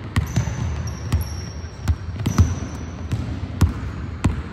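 Basketball dribbled on a hardwood gym floor: about seven bounces, spaced roughly half a second to a second apart, with short high sneaker squeaks in the first half.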